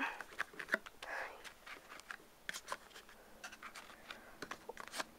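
Hands working at a collector's box, a run of faint clicks, taps and scrapes as fingers pry at a lid that is held shut by magnets.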